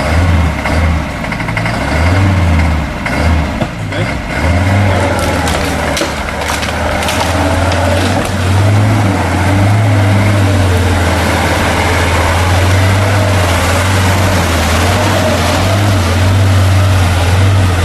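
GAZ-69 off-roader's engine running under load as it drives off-road, uneven for the first few seconds and then a steady drone. Scattered clicks and knocks come in the first several seconds.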